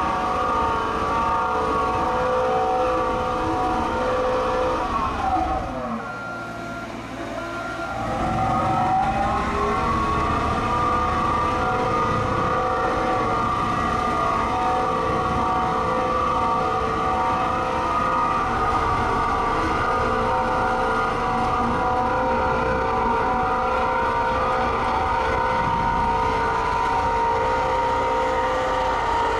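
Cat CP563D smooth-drum vibratory compactor's diesel engine running at high speed with a steady whine. About five seconds in, its pitch falls as it throttles down. About three seconds later it revs back up and runs steady again.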